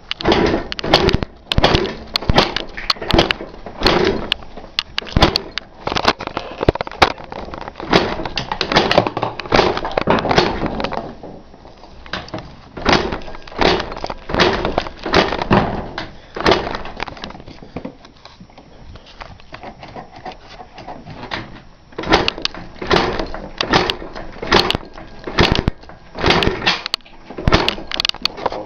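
1998 Yamaha Blaster's single-cylinder two-stroke engine running and being blipped unevenly, with loud irregular sharp knocks and pops, quieter for several seconds past the middle. The owner believes the knocking is piston slap.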